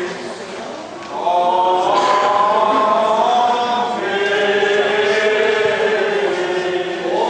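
Armenian Apostolic liturgical chant sung by several voices in slow phrases of long held notes. The singing is softer at first, then swells into a fuller phrase about a second in, with a short upward slide near the end.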